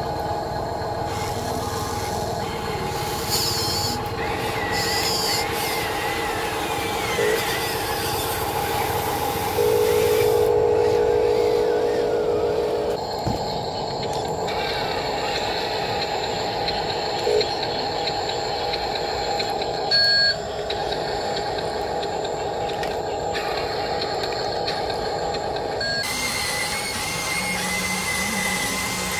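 Steady whine of the electric motors and hydraulic pump of radio-controlled Huina construction models, an excavator and a dump truck, working in mud. It grows louder for a few seconds about ten seconds in, and the sound changes abruptly at several cuts.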